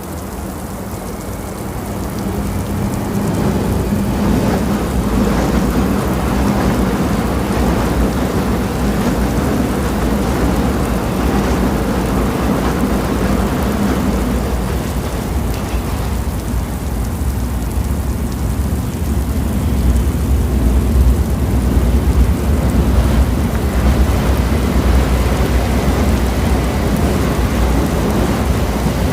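Loud, steady rumbling noise, heaviest in the low end, building up over the first few seconds and then holding.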